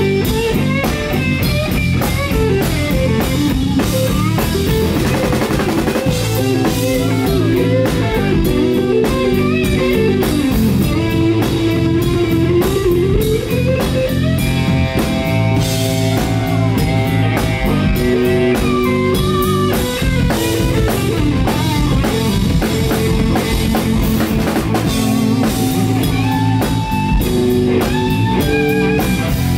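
Live blues-rock band playing an instrumental passage: an electric guitar lead with notes that bend up and down, over a drum kit.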